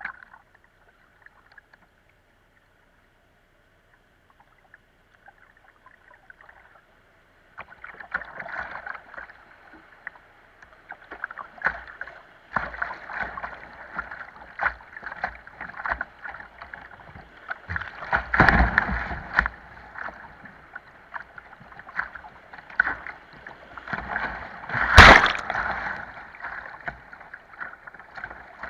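River water rushing and splashing against a kayak's bow as it runs a small rapid. After a quiet start it sets in about a quarter of the way through and builds, with repeated sharp slaps of water on the hull. The two loudest splashes come in the second half.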